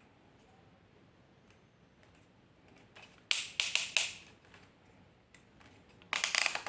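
A plastic selfie stick being handled and set up: a quick run of sharp plastic clicks about halfway through, and a brief rattle of clicks near the end.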